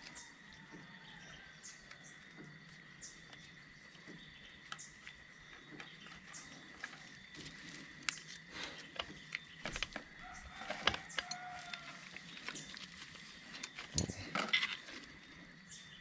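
Scattered light clicks and knocks of hand work on a motorcycle chain, busiest and loudest in the second half, with chickens clucking in the background and a steady faint high-pitched tone underneath.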